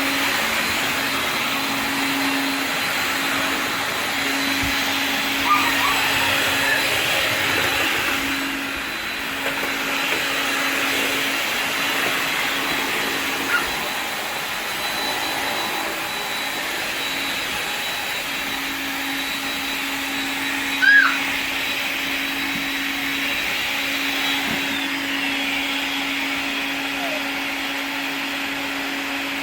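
AEG cordless stick vacuum cleaners, a 12 V LI21 and a 16 V LI30, running steadily side by side in a battery run-time test, with a constant motor hum and a thin high whine. A few brief high chirps cut in over it, the loudest about two-thirds of the way through.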